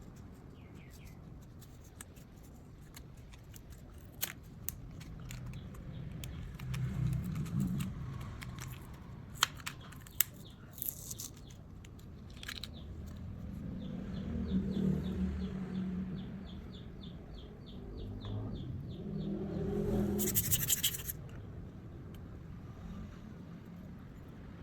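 Small sharp clicks and short scrapes of hands and small tools working on a wristwatch, with a quick run of fine even ticks partway through.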